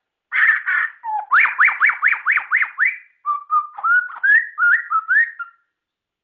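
White-rumped shama (murai batu) singing: two harsh notes, then a quick run of about six rising whistles, then a varied warbling phrase that stops about a second before the end.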